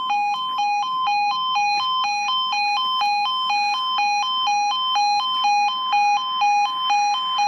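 Level crossing audible warning alarm sounding: an electronic two-tone alarm switching back and forth between a lower and a higher tone a couple of times a second, steady throughout. It warns that a train is approaching.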